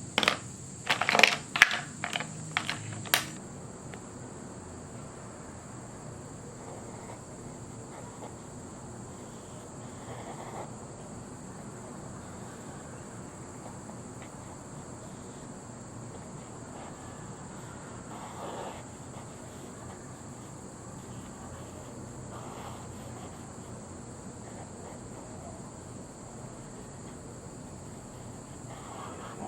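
A quick run of sharp light clicks and taps in the first three seconds, then steady faint hiss with a few soft brief rustles.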